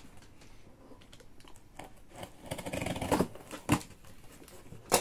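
Cardboard box being opened with a utility knife: scratching and rustling as the tape is cut and the flaps are pulled up, with two sharp clicks near the end.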